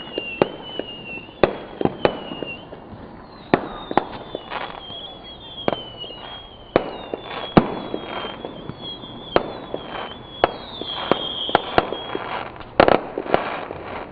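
Fireworks going off in a rapid, uneven string of bangs and cracks, with high whistles falling in pitch over them; the bangs come thickest near the end.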